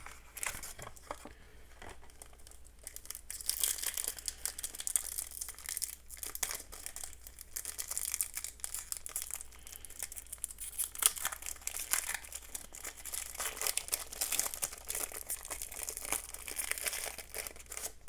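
Foil wrapper of a Yu-Gi-Oh! booster pack being handled and torn open: an irregular crinkling and crackling, busier from about three seconds in.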